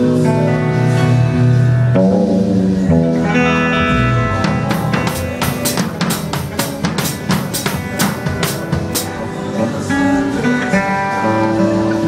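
Guitar playing held chords, then about five seconds in a drum kit takes over with a few seconds of sharp hits, about three a second, before the guitar carries on.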